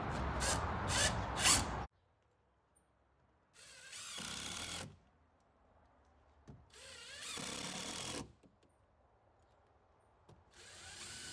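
Cordless drill driving screws into cement board in three short runs, each stopping as the screw seats, with quiet gaps between. Before them, a couple of seconds of steady noise that cuts off suddenly.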